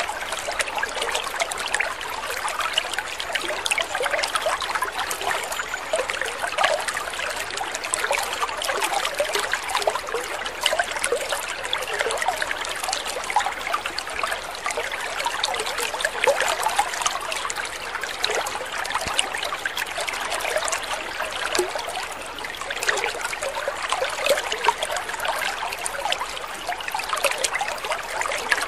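Water trickling steadily with a light bubbling crackle.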